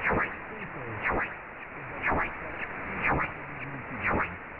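Shortwave radio reception of a very weak AM broadcast on 4785 kHz, presumed to be Rádio Caiari: steady hiss with a faint voice barely above it. A sharp crackle of interference breaks in about once a second.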